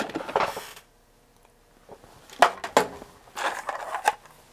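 Handling noises on a workbench: after a quiet second or so, two sharp clicks come about two and a half seconds in, followed by lighter clicking and rustling.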